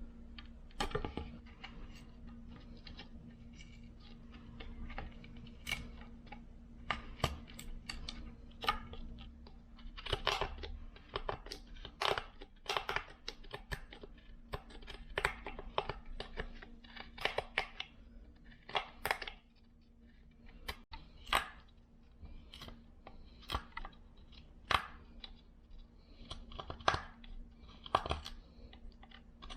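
Hand-working noises: an irregular run of short scrapes and clicks, some in quick succession and others spaced out, over a faint steady low hum.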